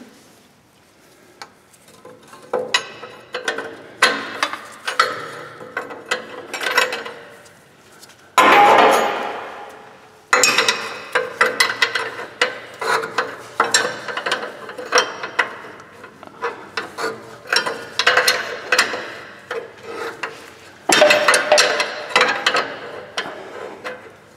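Ratchet wrench clicking in short repeated runs as a hard-to-reach exhaust fitting, likely an oxygen sensor, is worked tight. About eight seconds in comes a louder, longer burst of metallic noise lasting about two seconds.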